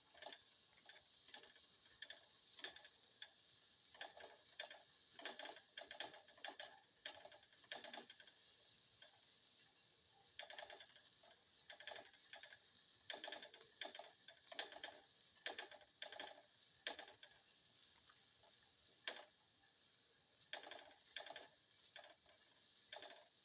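Spatula or spoon scraping and clicking against a pan as shallots and garlic are stirred while sautéing, in uneven runs of quick clicks with short pauses.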